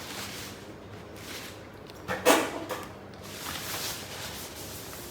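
Cardboard and plastic packaging rustling and scraping as a large, heavy vinyl figure is lifted out of its box. About two seconds in there is one short, falling vocal sound of effort.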